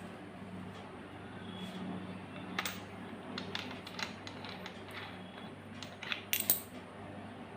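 A few sharp clicks and taps of small hard objects being handled, the loudest cluster near the end, over a steady low hum.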